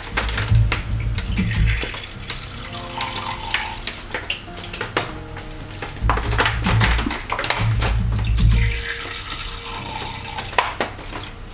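Soy sauce poured from a ladle into a pan of sliced shiitake mushrooms simmering in liquid, with liquid splashing and ladle clinks against the pan, over soft background music with a deep bass pulse.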